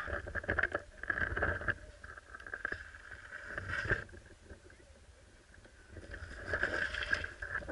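Mountain bike riding over a trail: a rumble of wind on the microphone with rattling clicks from the bike, quieter in the middle and picking up again near the end.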